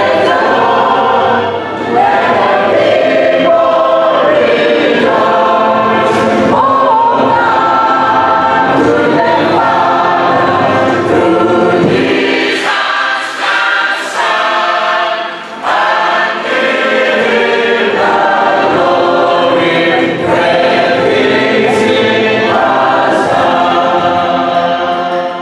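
A choir of many voices singing a hymn together, fading out at the very end.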